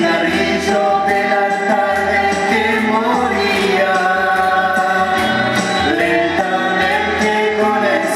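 A man and a woman singing a Spanish-language ballad together into microphones, holding long notes, over instrumental accompaniment with a steady bass line and light percussion.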